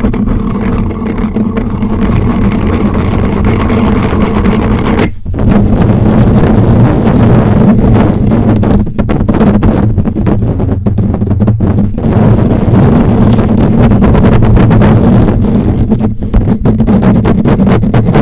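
Fingers scratching and rubbing hard, right on a microphone's head, giving a loud, rough rumbling scratch with a few short breaks.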